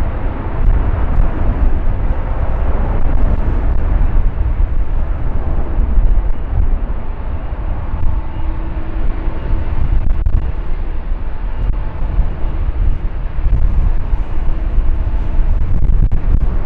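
Engines of a large wide-body jet airliner, heard close by as a loud, steady, deep rumble with faint steady tones over it.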